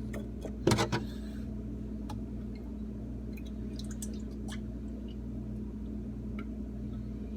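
Steady low hum, with a cluster of sharp knocks and clatter just under a second in and a few faint clicks after.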